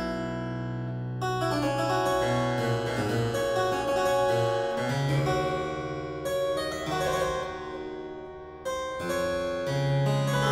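Double-manual harpsichord, built by William Horn after a 1638 Johannes Ruckers instrument, playing slow, ringing chords and melodic lines. The sound thins out about eight seconds in, then a fresh chord is struck.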